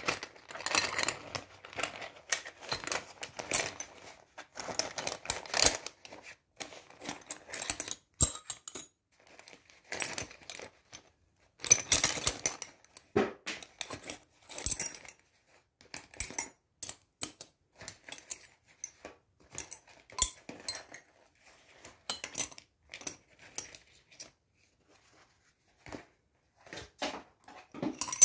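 Steel hand tools (open-end spanners, pliers, a tubular spark-plug spanner) clinking and clattering against each other as they are handled and set down on a cloth, in scattered bursts, with a vinyl tool pouch crinkling in the first few seconds.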